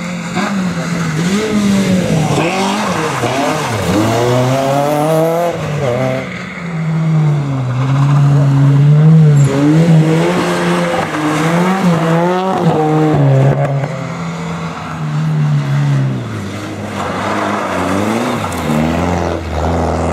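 Rally cars coming through a tight bend one after another, engines revving hard and climbing through the gears, each rising sweep cut off by a quick shift. Two such acceleration runs are heard, about two seconds in and again near the middle, with a lower, steadier engine note near the end.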